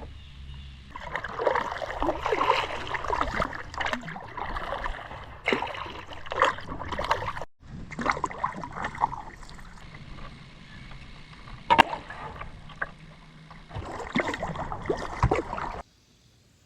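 Kayak paddle strokes in the water, with splashing and dripping off the blades and a couple of sharp knocks. The sound cuts off suddenly near the end.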